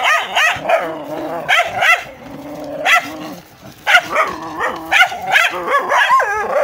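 Dogs fighting: rapid, overlapping barks and yelps. In the middle it drops to a lower, held growl, then sharp barking breaks out again about four seconds in.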